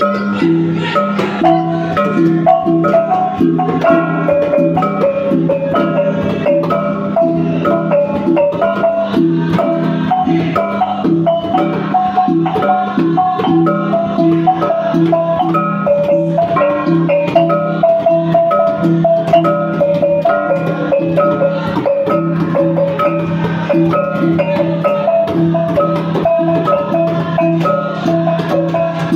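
Traditional gong-and-mallet ensemble music: a long row of tuned bars or small gongs is struck with mallets in a quick, repeating melody over the steady ringing hum of a large hanging gong.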